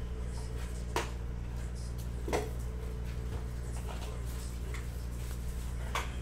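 A steady low hum with a few sharp clicks and taps, the loudest about a second in, near two and a half seconds and near the end: trading cards being flicked through and handled by hand.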